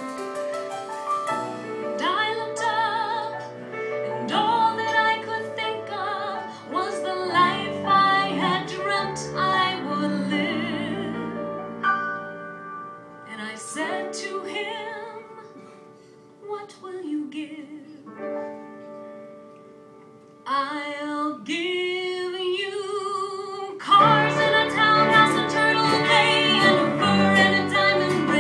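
A woman singing a musical-theatre ballad live with piano accompaniment, her voice held in long notes with vibrato. The song drops to a soft passage about two-thirds of the way through, then swells louder near the end.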